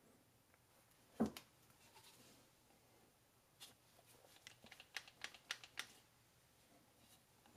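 Faint handling sounds of a flex-head ratchet: a soft knock about a second in, then a run of light, irregular clicks.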